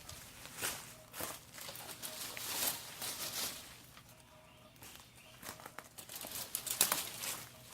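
Leafy azalea branches rustling and crackling in irregular bursts, with a quieter stretch a little past the middle.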